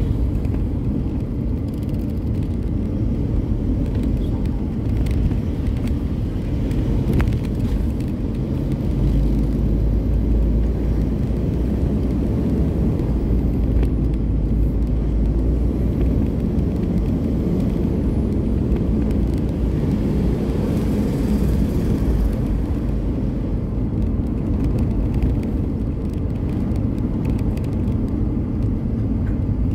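Car driving: a steady rumble of engine and road noise, with the low drone heavier from about nine seconds in to about sixteen seconds in.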